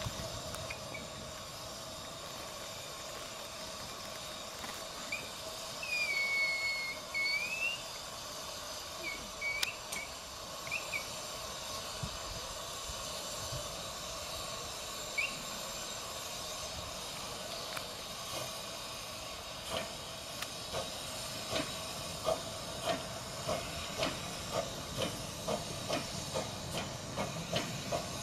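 Miniature steam locomotive hissing steam as it runs in with its train. A brief squeal comes about six seconds in, and in the second half there is a regular clicking, about one and a half a second, that grows stronger as it draws near.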